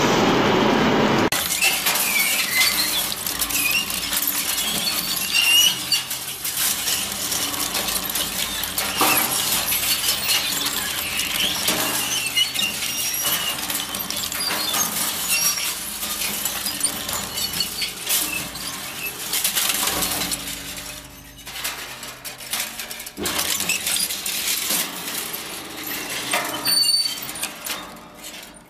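Crusher or shredder machine breaking up brittle material: a continuous jumble of crunching, cracking and snapping with short high squeaks.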